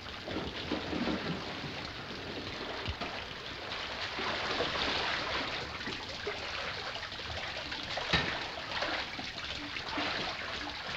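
Water running and splashing in a flooded mine passage as people wade through it, with a single sharp knock about eight seconds in.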